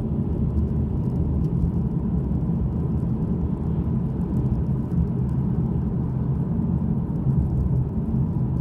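Steady low rumble of a car driving along at speed, heard from inside the cabin.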